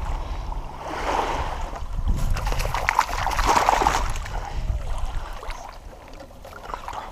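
Water splashing and sloshing as live carp kick inside a mesh keeper net in shallow lake water while it is handled, loudest for a few seconds early on and dying down toward the end.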